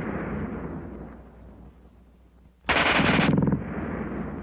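German machine gun firing a short burst at a very high rate. The echo of one burst fades away at first, then a second burst of about a second comes near the end and trails off in echo.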